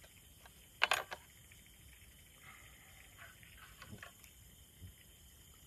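Light clinks and clicks of utensils and dishes on a camping table as a meal is started, a short cluster about a second in and a few fainter ticks later.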